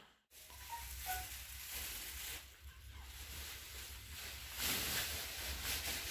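Faint room noise, a steady low rumble with a light hiss, and soft rustling that swells twice as the phone is carried around.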